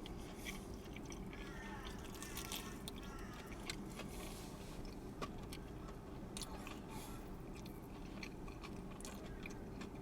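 Faint chewing and biting on a crumb-coated fried chicken wing, with small wet clicks scattered through. A steady low hum runs underneath.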